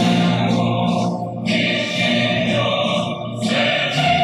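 Choral music: voices singing long held notes, with short breaks between phrases.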